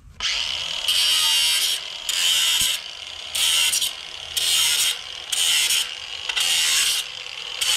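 Angle grinder with a cutoff wheel running steadily and cutting through steel fence wire and staples on a wooden post. The cut comes in about seven short, louder passes, roughly one a second, each a harsh hiss as the wheel bites the metal.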